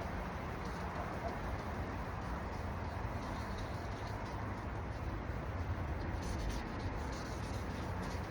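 Steady scrubbing of sandpaper on a plastic headlight lens, sanding with 1000-grit paper, over a low steady hum.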